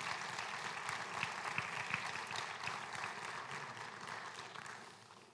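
Congregation applauding, the clapping dying away over the last second or so.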